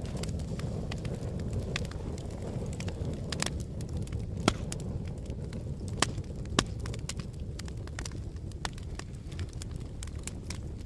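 Wood fire crackling with irregular sharp pops, three louder snaps around the middle, over a steady low rush of blowing wind.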